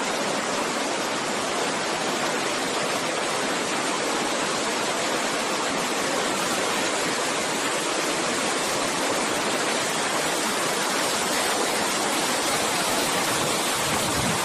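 Steady, even rush of water cascading over rocks: a waterfall.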